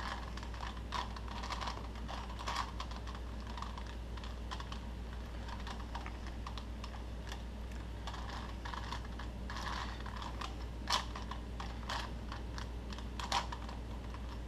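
A Rubik's cube being turned by hand: an irregular, fast run of small plastic clicks and clacks, with a few louder clacks in the last few seconds.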